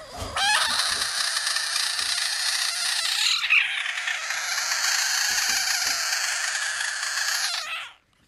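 Budgett's frog screaming: a loud, harsh, drawn-out distress scream after being poked, held for about seven seconds with a short break a little past three seconds in, then cutting off suddenly.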